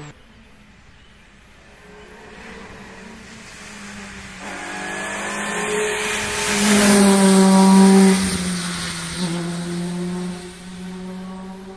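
Rally car passing at speed: its engine note grows as it approaches, is loudest about seven to eight seconds in, then fades as it drives away.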